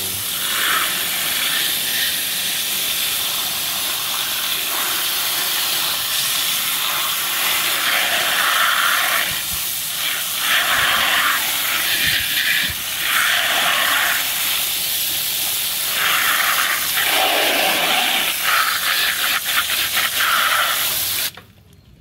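Water jetting from a hand-held garden-hose spray nozzle onto muddy plastic toy trucks: a loud, steady hiss whose spatter changes as the jet moves over the toys and the wet floor. It cuts off abruptly near the end.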